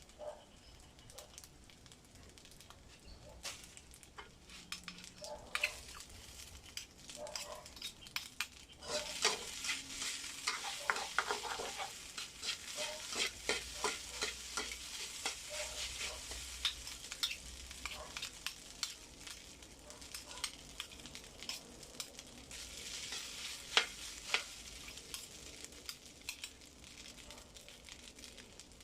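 Fried rice with egg sizzling in a hot pan while a spatula stirs and scrapes it, with many small clicks and taps. The sizzle gets much louder about nine seconds in and stays up.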